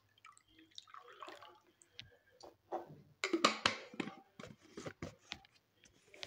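Water trickling and dripping from a plastic sports bottle into a small plastic cup, then a cluster of plastic clicks and rubbing about three seconds in as the bottle's cap is twisted shut.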